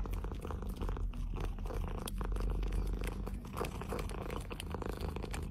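Domestic cat purring steadily, a low, even rumble.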